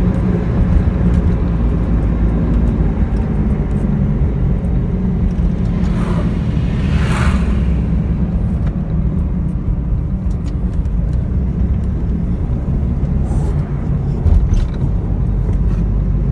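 Vehicle engine running steadily with road rumble as it drives along, heard from on board. A hissing rush swells and fades about seven seconds in.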